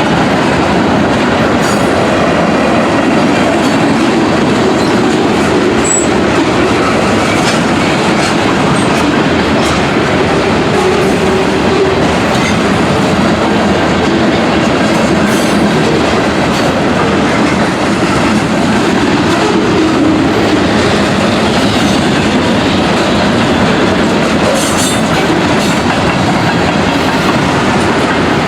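Freight train cars rolling past close by: a steady loud rumble and clatter of steel wheels on the rails, with scattered clicks.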